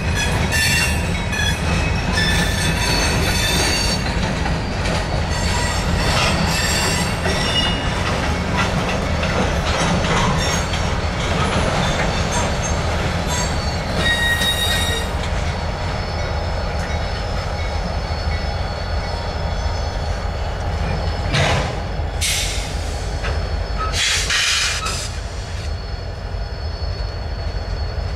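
Freight cars rolling through a rail yard, their steel wheels squealing in high-pitched tones over a steady low rumble, with two short, louder screeches near the end.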